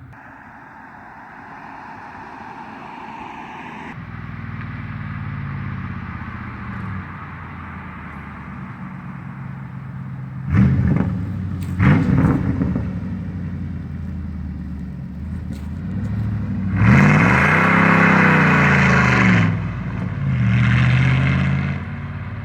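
Pontiac Trans Am's LT1 V8 exhaust running, then revved: two quick blips about halfway through, a longer rev that climbs and falls back near the end (the loudest part), and one more short rev just after it.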